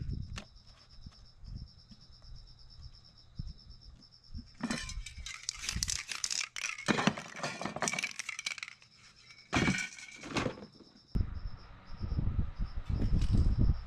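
Spray-paint stencil work: irregular bursts of rustling and hissing as paper stencils are pressed and handled on the canvas, starting about five seconds in, with more near the end.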